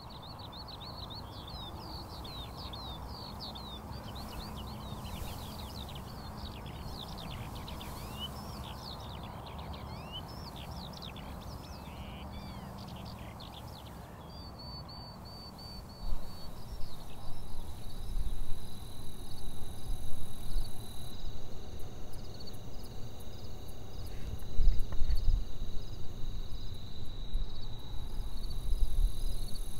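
Insects chirping. At first there are many short high chirps. From about halfway a steady, evenly pulsing high trill takes over, with a low rumble underneath that grows louder.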